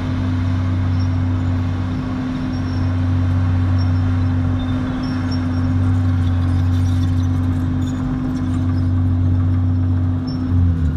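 Diesel engines of a Komatsu bulldozer pushing soil and a dump truck nearby, running steadily with a low drone.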